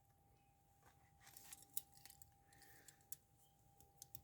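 Faint, scattered metal clicks and clinks of steel handcuffs as a thin shim is worked into the cuff's ratchet.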